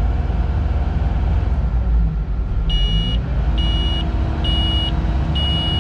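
Cat 310 excavator's diesel engine running steadily, its note dipping briefly and recovering about two seconds in. From about halfway through, four short high electronic beeps repeat a little under a second apart: the warning alarm of the quick coupler as it is released to change the bucket.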